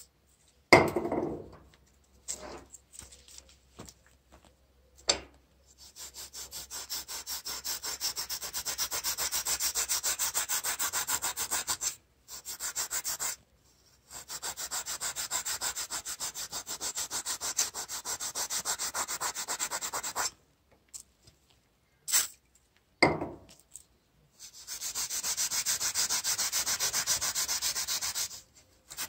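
Maroon abrasive pad scrubbed rapidly back and forth along the old steel blade of an M95 bayonet wet with WD-40, in three long runs broken by short pauses. A few knocks fall in the pauses, the loudest about a second in.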